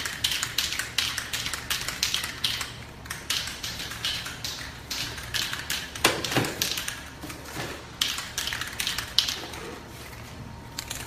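Aerosol can of car colour paint being shaken hard, its mixing ball rattling about four times a second, with a couple of brief pauses. The shaking mixes the paint before it is sprayed.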